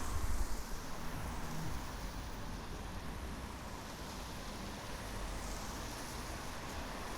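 Steady low rumble with a hiss over it, a little louder in the first two seconds.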